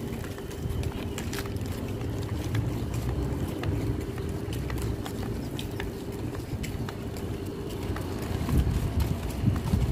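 Wind buffeting a handheld phone microphone while walking outdoors, with a steady hum underneath that fades out about two-thirds of the way through, and scattered light clicks.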